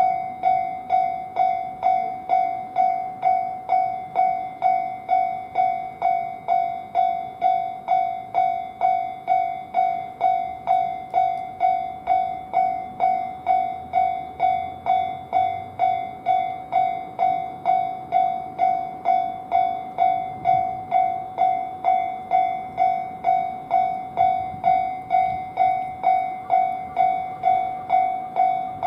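Japanese railway level-crossing warning bell going "kan-kan", sounding a single high ringing tone in steady, evenly spaced strikes while the crossing is closed for a train.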